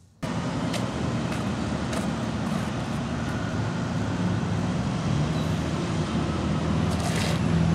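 Steady road traffic noise from passing cars and trucks, a constant rumble with a low hum, starting suddenly just after the start.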